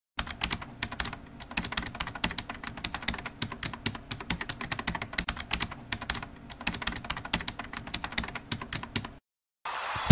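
Rapid, irregular clicking, like typing, that goes on for about nine seconds and cuts off suddenly near the end.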